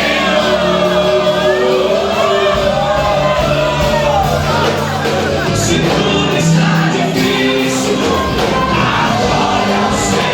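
Live Brazilian evangelical worship music: a band playing steadily with a voice singing over it.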